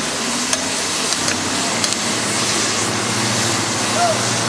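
Cutting torch burning through structural steel: a steady hiss with scattered sharp pops.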